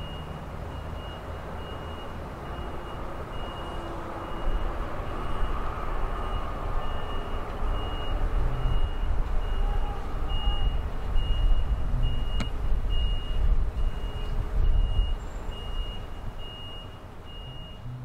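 Ballast regulator working the track: its diesel engine rumbling with a backup alarm beeping steadily, about once a second. The rumble grows louder partway through and eases off near the end.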